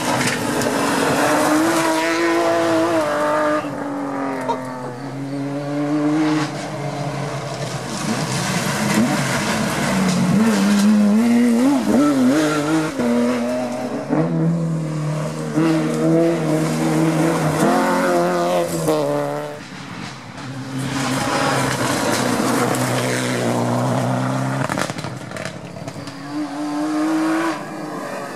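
Rally car engines, among them a BMW E36 3 Series, revving hard and rising and falling in pitch through gear changes as the cars pass at speed, several passes one after another.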